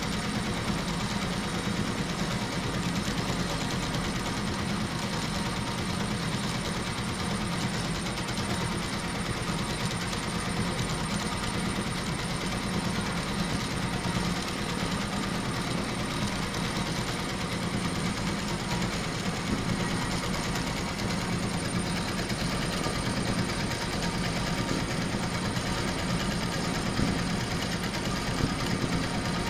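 Twelve-needle high-speed embroidery machine stitching a design, running steadily with a dense, even stitching rhythm and a faint high whine.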